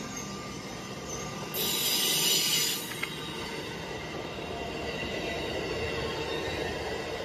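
LEGO toy train with its cars rolling along plastic track past the camera, making a steady rolling rattle and motor whir. About a second and a half in there is a louder hissing rush that lasts about a second.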